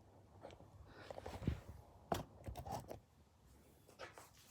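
Light handling noises: a few faint clicks and knocks as the vise and tools are handled, the sharpest about two seconds in.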